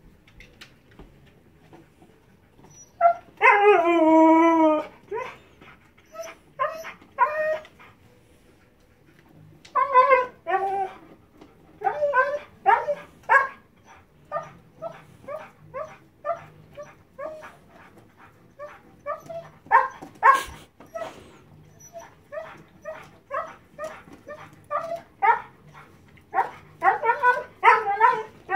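Husky whining: one long wavering whine about three seconds in, then a long run of short high whines and yips, the sound of a dog impatient while made to wait its turn for a bone.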